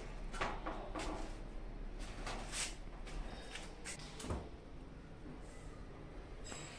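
Faint scattered knocks and clicks, several in the first four seconds or so, over a low steady hum.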